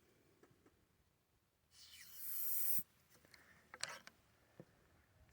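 A brief hissing rustle about two seconds in, lasting about a second, then a few small clicks and taps from handling the pistol and loading gear.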